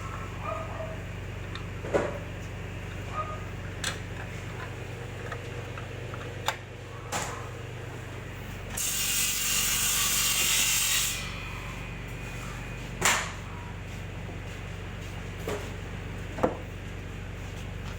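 Scattered clicks and knocks of tools and metal parts being handled during assembly of an electric compressor motor, with one hiss lasting about two seconds near the middle, over a steady low hum.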